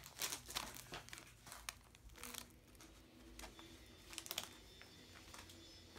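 Faint crinkling and rustling of plastic and foil packaging being handled: a scatter of short, irregular crackles.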